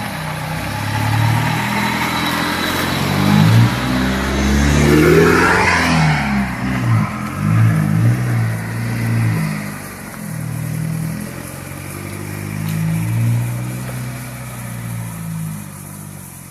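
Nissan GU Patrol's 3.0-litre turbo-diesel engine driving off-road, its revs rising and falling under load. It is loudest a few seconds in and grows quieter over the last few seconds.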